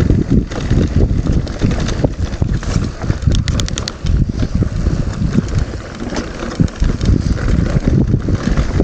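Wind buffeting an action camera's microphone while a mountain bike rolls over a rough trail, with irregular knocks and rattles from the bike. There is a short run of quick ticks about three and a half seconds in.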